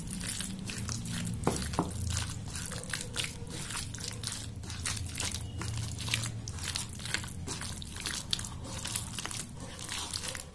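A hand mixing raw chicken pieces into a thick, wet chilli-masala marinade in a bowl: many short, irregular wet squishing and slapping sounds as the pieces are worked and pressed.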